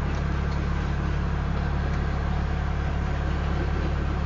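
Union Pacific grain train of loaded hoppers rolling past at about 21 mph, a steady low rumble with no clear wheel clicks.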